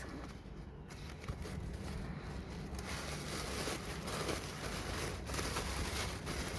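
Soft rustling and crinkling of packaging being handled and opened, with faint scattered clicks, a little louder about halfway through.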